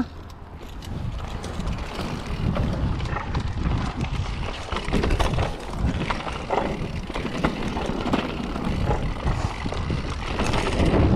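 Mountain bike riding along a dirt trail: tyres rolling over the ground and the bike rattling and knocking over bumps, with wind buffeting the microphone.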